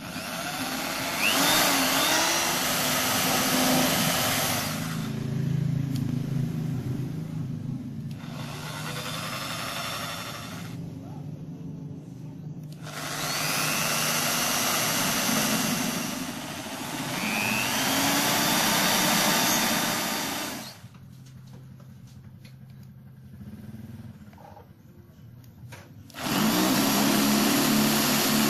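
Electric drill running in several bursts, boring holes through 6 mm MDF; several runs begin with a rising whine as the motor spins up. Near the end the drill starts again fitted with a hole saw.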